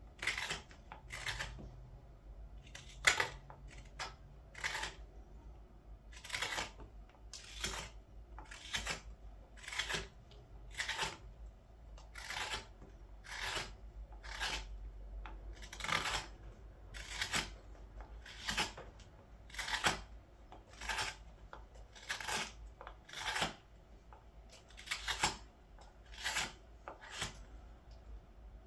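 Carving knife slicing shavings off a green-wood ladle blank in steady, repeated strokes, a short scratchy cut about every second.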